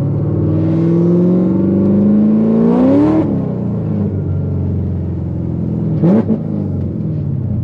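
Cammed, supercharged LT4 V8 of a C7 Corvette Z06, heard from inside the cabin, accelerating hard: its pitch climbs for about three seconds, drops sharply at an upshift, then settles to a steadier run. About six seconds in there is a brief sharp rise in pitch.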